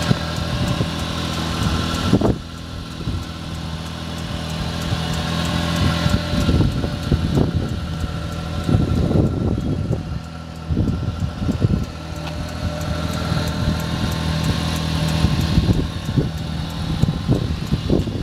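Mitsubishi Minicab U15T kei truck's small three-cylinder engine idling steadily at the exhaust, dropping in level about two seconds in, with irregular buffeting on the microphone through the second half.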